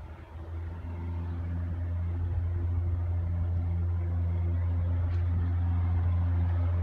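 Cessna 172 floatplane's piston engine and propeller at full takeoff power during the takeoff run: a steady low drone that builds over the first second and then holds.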